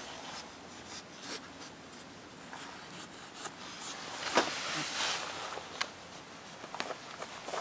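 Cat mouthing, licking and rubbing its face on a cloth catnip pillow: soft rubbing of fur on fabric with scattered small wet clicks, a few of them sharper around the middle.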